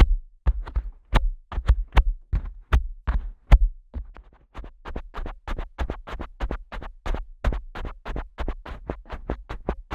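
Fingers tapping and flicking directly on the ear of a Neumann KU100 dummy-head microphone, each stroke a sharp tap with a deep thump. The taps come about two a second at first, then from about four seconds in they turn faster and softer, about four a second.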